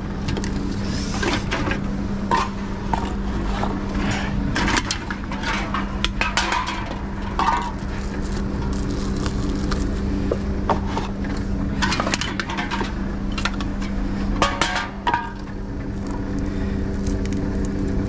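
Reverse vending machine running with a steady hum while bottles are pushed one at a time into its round intake, with repeated clunks and clatter as each bottle is taken in and carried away.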